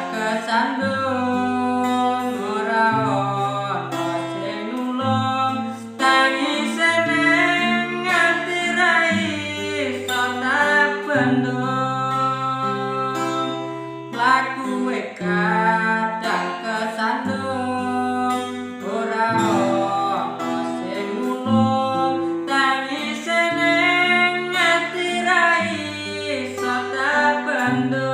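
Music: guitar-led accompaniment over a bass line that changes note every second or two, with a lead melody that glides and bends in pitch.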